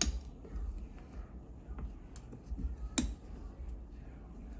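Light ticks and handling noise of a CPU cooler's mounting screws being turned down onto the motherboard, with one sharp click about three seconds in.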